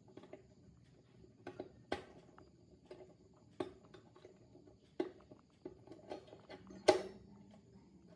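Light clicks and taps of small hard parts being handled, about half a dozen in all, with one sharper knock about seven seconds in.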